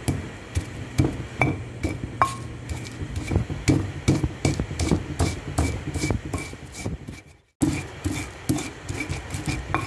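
Pestle pounding garlic, shallots and coriander seeds in a stone mortar: repeated knocks, about two to three a second, with a brief gap about seven and a half seconds in.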